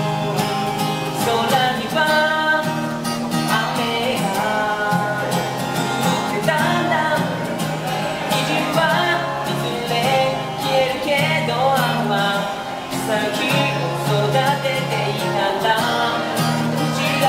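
A male voice singing a song live, with his own strummed small-bodied acoustic guitar accompaniment.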